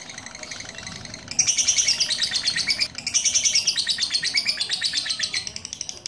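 Lovebird chattering in a fast, continuous trill of high chirps, much louder from about a second and a half in, with a brief break near the middle and dropping back near the end. This is the long, unbroken song that lovebird keepers prize as duration song.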